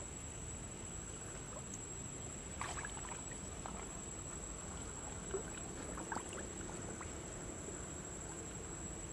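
Faint water-side ambience at the edge of a shallow lily pond: a low steady hiss with a few soft little splashes or drips, the clearest about two and a half seconds in and around six seconds. A thin, steady high-pitched whine runs under it.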